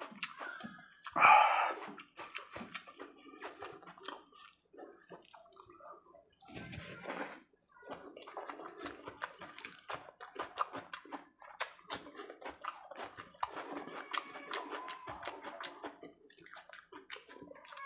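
Close-miked wet squishing of khichdi rice and egg curry gravy being mixed by hand, with chewing and mouth smacks, many small clicks and squelches. One louder wet burst about a second in.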